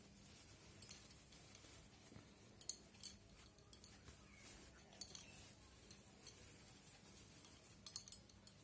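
Faint cloth rustling as a stitched fabric piece is pulled and turned right side out by hand: short, crisp scrapes every second or two, with a quick cluster near the end.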